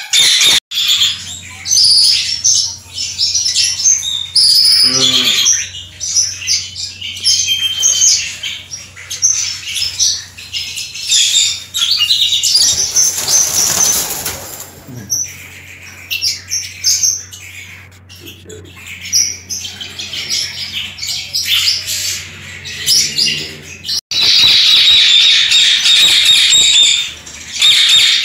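A room of caged red-rumped parrots and ringneck parakeets chirping and calling, with a brief burst of wing flapping near the middle. In the last few seconds the calling grows louder and more continuous.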